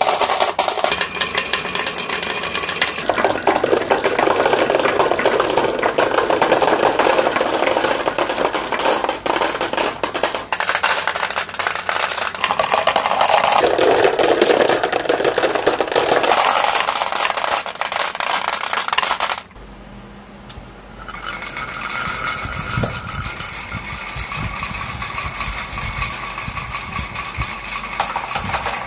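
Many marbles rolling and clattering down carved wooden wave-shaped marble-run tracks, a dense continuous rattle of marble on wood and marble on marble. It drops off sharply for a second or two about two-thirds of the way through, then picks up again.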